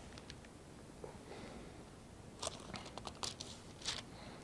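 Faint rustling of paper pages being turned, a few short crinkles and light ticks mostly in the second half, as a Bible is leafed through to find a passage.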